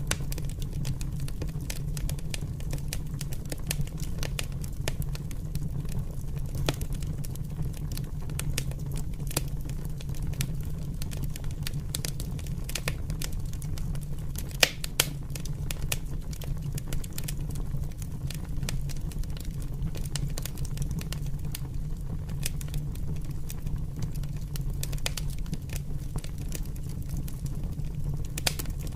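Open fire burning, crackling and popping irregularly over a steady low rumble, with two louder pops close together about halfway through.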